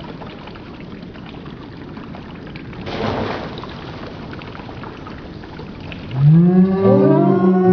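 Elephant toothpaste foam, hydrogen peroxide with a potassium iodide catalyst, bursting out of the flask with a short rushing whoosh about three seconds in, over a steady hiss. From about six seconds, louder long tones come in, several at once, gliding up and down.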